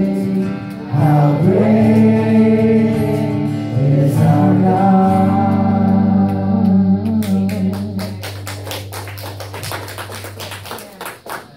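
Worship song: a man singing with acoustic guitar strumming. About two-thirds of the way through the singing stops and the guitar strums on alone, growing quieter as the song ends.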